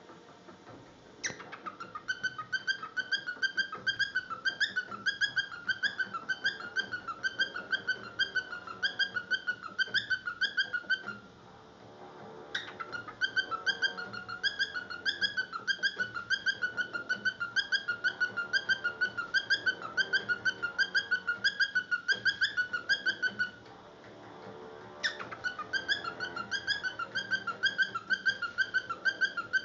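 Cockatiel mimicking a washing machine on spin cycle: a high, rapidly pulsing warbled whistle repeated many times a second. It comes in three long runs of about ten seconds each, each starting abruptly, with short breaks between.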